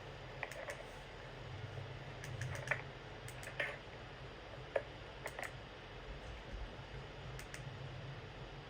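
Scattered light clicks and taps at irregular intervals, over a low steady hum.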